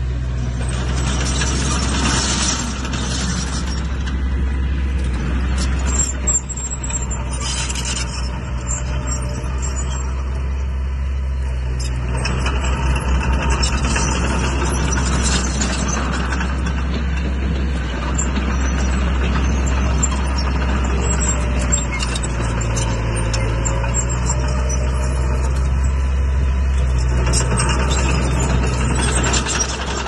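Crawler bulldozer's diesel engine running steadily with a deep drone, over rattling, clanking and squeaking from its steel tracks.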